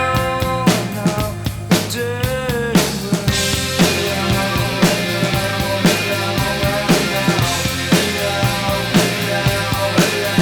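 Rock music with a drum kit keeping a steady beat, the drums played on a Roland TD-17KVX electronic kit along with the track. About three seconds in the music turns fuller and busier.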